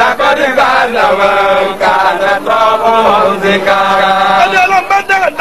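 A man chanting an Islamic qasidah, drawing out long held notes that bend and slide in pitch. A steady lower tone sounds beneath the voice in places.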